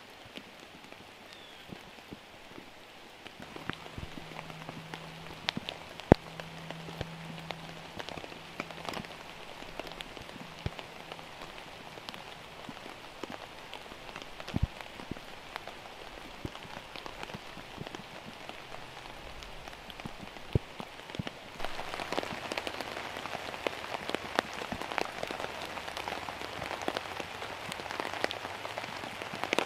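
Steady rainfall, with individual drops striking close by as sharp ticks. It turns louder and heavier abruptly about two-thirds of the way through.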